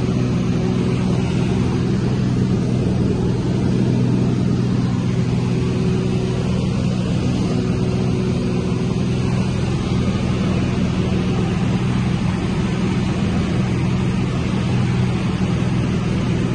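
Light aircraft's engine and propeller running steadily in cruise, a constant low drone heard from inside the cabin.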